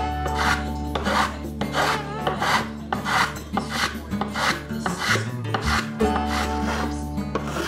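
A small hand tool shaving and scraping wooden guitar binding flush in repeated strokes, over background acoustic guitar music.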